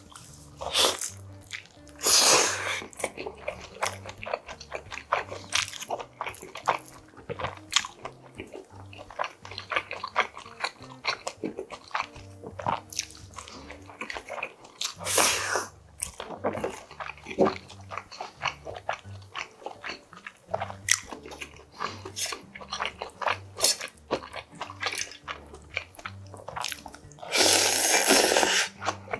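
Close-up eating sounds: wet chewing and biting of steamed dumplings with many small mouth clicks, broken by a few slurps. The longest and loudest is a slurp of cold naengmyeon noodles near the end.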